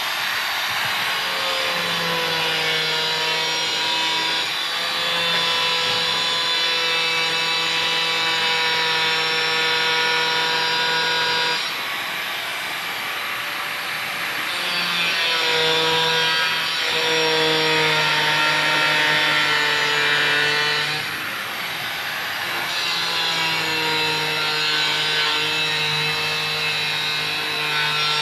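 Handheld angle grinder with a cutting disc running and cutting through PVC drain pipe, a continuous high whine. The whine falters briefly twice, about twelve and about twenty-one seconds in, then picks up again.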